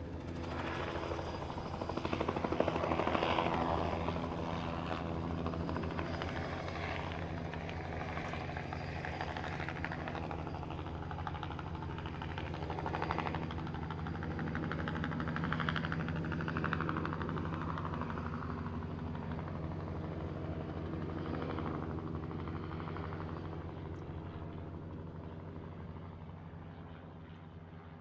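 Helicopter in flight: a steady, rapid rotor beat over the engine's drone, swelling and easing a little, then fading out near the end.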